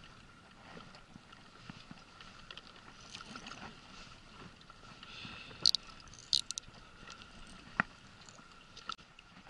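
Faint noise of water and wind around a small boat on the sea, with a few sharp clicks from the baitcasting reel being handled as the drag is tightened, past the middle and once more near the end.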